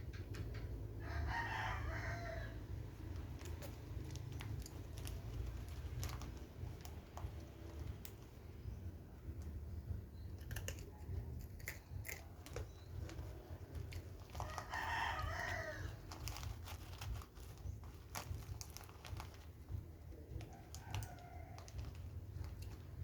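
A rooster crowing twice, each crow about a second and a half long and the two about thirteen seconds apart, with a fainter call near the end. Under the crows runs a steady low hum with scattered small clicks.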